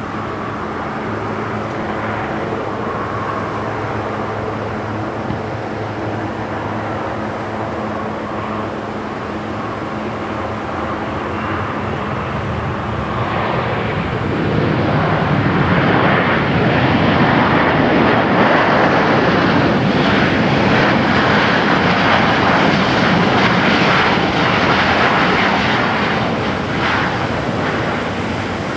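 Boeing 737-800's twin jet engines: a steady whine and hum on final approach, then, about halfway through, after touchdown, a louder rushing roar of reverse thrust that lasts about ten seconds and eases near the end.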